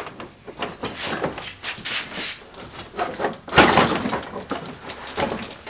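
Knocks, clicks and rattles of the plastic front bumper cover of a Mitsubishi Lancer Evolution X as it is worked free of its clips by hand, with a louder scraping clatter about three and a half seconds in.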